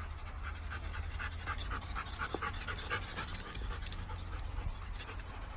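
A working search dog panting in quick, rhythmic breaths, about three or four a second, over a steady low rumble.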